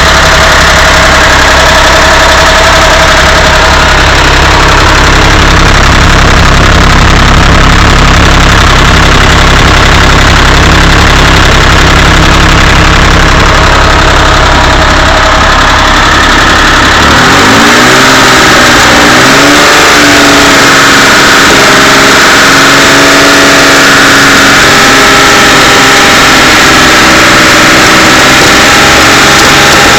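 A rebuilt air-cooled Porsche 911 flat-six running with the knocking, rattling and ticking that the owner takes for a botched rebuild. About seventeen seconds in, the deep rumble falls away and the engine's pitch rises and falls a couple of times, then holds steady.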